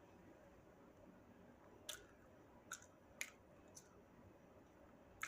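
Near silence broken by four or five short, crisp clicks from eating, spaced unevenly over a few seconds.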